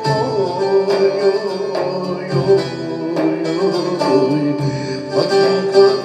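Instrumental passage of a Turkish folk song: plucked string instruments carry a flowing melody over a steady backing.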